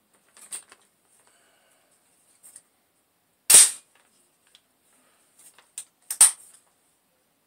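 AR-15 action being worked on an empty shell casing: two loud, sharp metallic clacks about two and a half seconds apart, as the bolt slams closed and the trigger is pulled. Lighter clicks of the rifle being handled come around them.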